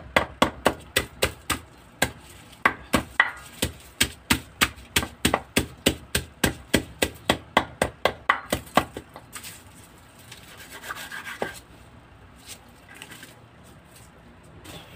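Lemongrass stalks being pounded on a wooden chopping board to crush them, in a fast, even run of sharp knocks about three to four a second. The knocking stops about nine seconds in, leaving quieter rubbing and handling sounds.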